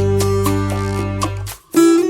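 Background music led by a plucked acoustic guitar over a held bass line; it drops out for a moment about one and a half seconds in, then starts again.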